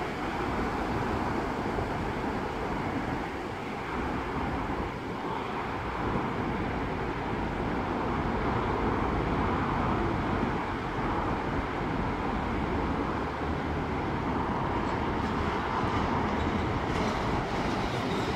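Approaching train running along the track, a steady rumble that grows slightly louder, with faint rattles near the end.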